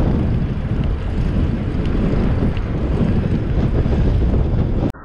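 Loud wind rumble on the microphone of a camera riding on a moving bicycle. It stops abruptly near the end.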